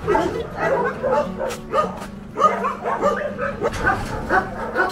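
Shelter dogs barking and yipping, many short barks in quick succession, some of them overlapping.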